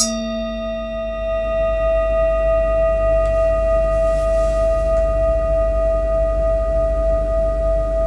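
Metal singing bowl struck once right at the start, then ringing on with a strong steady low tone and several higher overtones. The ring swells a little after a second or so and holds.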